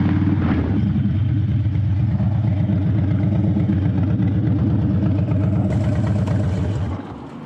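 Harley-Davidson Dyna's V-twin engine running steadily through freshly replaced exhaust gaskets, with no sign of an exhaust leak. The engine sound drops away sharply shortly before the end.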